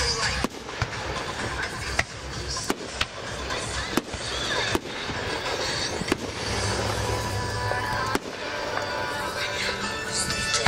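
Aerial fireworks going off in a string of sharp bangs a second or two apart, with crackling, over music playing in the background.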